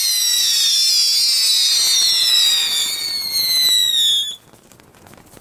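Several small ground fireworks burning at once and spraying sparks, giving high shrill whistles that slide slowly down in pitch. The whistles stop together about four seconds in, leaving a few faint ticks.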